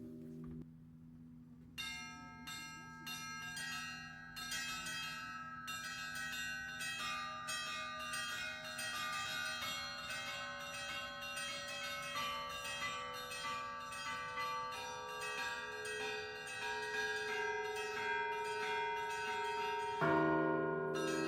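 Russian Orthodox church bells: after a brief lull, a new peal starts about two seconds in, with the small bells struck in a quick, busy pattern, each stroke ringing on. Near the end, the deeper, heavier bells come in and the peal grows louder.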